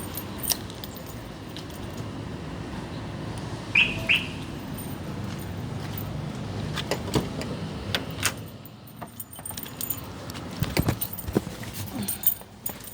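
Keys jangling with scattered clicks over a steady low rumble that fades about eight seconds in, and two short loud high chirps close together about four seconds in.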